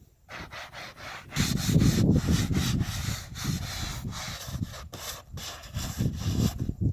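Irregular scraping and rubbing against wood: a quick run of rough strokes that gets louder about a second and a half in, with no chainsaw engine running.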